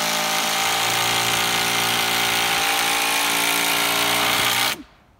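Power drill running steadily at one speed, then stopping abruptly near the end, as screws are driven out to take down temporary side supports.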